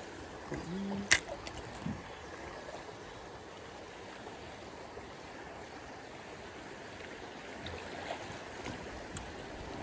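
River water running steadily, with a single sharp click about a second in.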